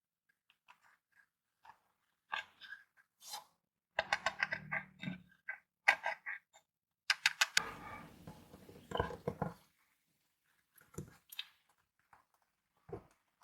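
Clear slime being squeezed and folded by hand, giving bursts of small wet clicks, crackles and pops from trapped air. The sound comes in several bouts with short pauses between them, thinning to a few scattered clicks near the end.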